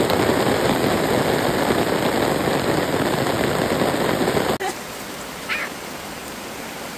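Heavy rain pouring down steadily, an even rushing noise. It cuts off abruptly about four and a half seconds in, and a quieter, even hiss follows.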